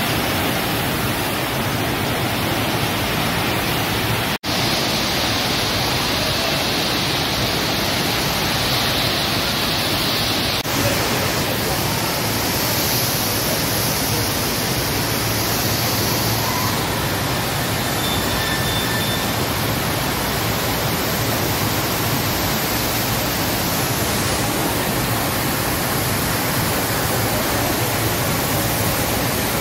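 Loud, steady rush of water from an indoor sheet-wave surf simulator as it pours up the slope under a bodyboarder. It cuts out for an instant about four seconds in.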